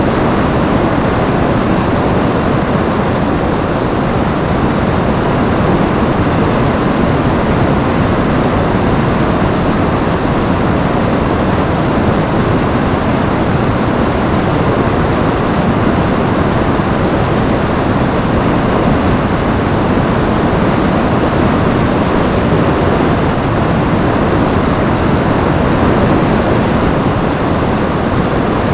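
Loud, steady rush of airflow buffeting the onboard camera's microphone on an FPV flying wing in flight.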